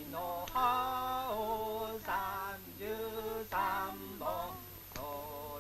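A man singing a slow Japanese ballad with almost no accompaniment, holding long notes with a wavering vibrato over several phrases separated by short breaths.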